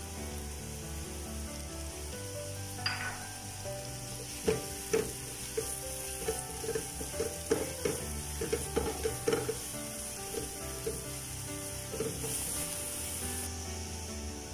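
Chopped onions and green chillies sizzling in hot oil in a nonstick pan, with a steady hiss. A slotted spoon knocks and scrapes against the pan in a run of stirring strokes, mostly between about 3 and 10 seconds in.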